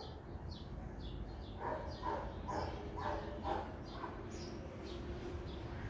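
Animal calls: short, high, falling chirps repeating about twice a second throughout, with a run of five or so short yelping calls in the middle.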